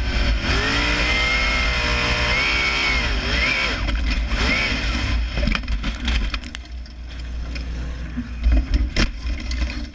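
Sprint car's 305 V8 engine heard from the onboard camera, its pitch swooping up and down with the throttle. About five seconds in the engine note drops away, leaving clatter and a few sharp knocks, the loudest near the end.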